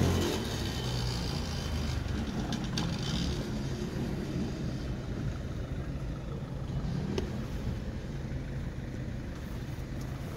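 Motor vehicle traffic: an engine dies away in the first half-second, then a steady low rumble of engines carries on.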